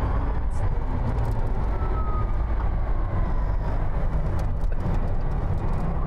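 Cabin sound of the Rimac Nevera electric hypercar being driven fast: a steady low road and tyre rumble with a faint whine that slides slowly in pitch.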